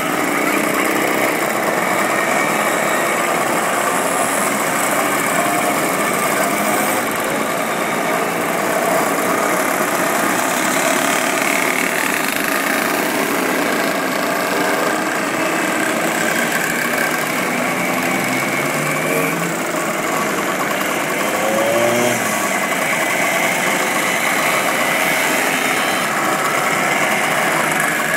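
A stream of vintage motorcycles and mopeds riding past one after another, a steady mix of many small engines running, with a few revving up about two-thirds of the way in.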